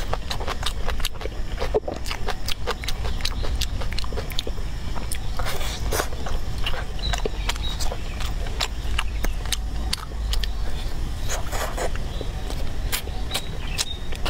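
Close-up chewing of a mouthful of rice, greens and meat: many small wet smacks and crisp clicks at an irregular pace, over a steady low hum.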